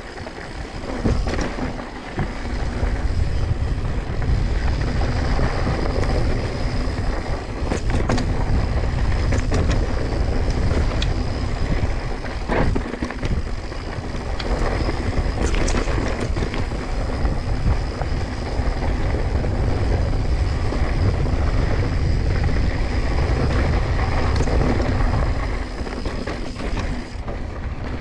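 Mountain bike ridden over a rocky dirt singletrack: tyres crunching over dirt and stones, the bike rattling with scattered sharp clacks, over a steady low rumble.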